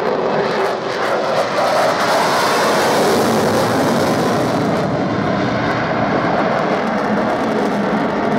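Swiss Air Force F/A-18C Hornet's twin General Electric F404 turbofans: loud, steady jet noise as the fighter manoeuvres through its display. The noise turns harsher and hissier from about two seconds in, then dulls a little after about five seconds.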